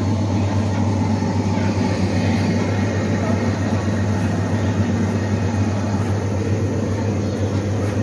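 Khoya-making machine running: its motor-driven stirrer turning in a stainless steel pan of steaming milk, a loud, steady, even hum.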